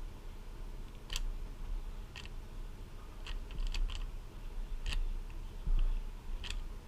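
Plastic clacks of a YJ Guanlong speedcube's layers being turned by hand: about six short, irregular clicks a second or so apart, over a low rumble.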